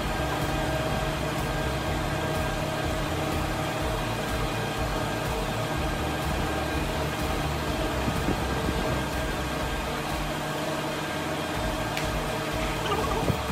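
Steady machine hum of a woodworking shop, with a few faint knocks near the end.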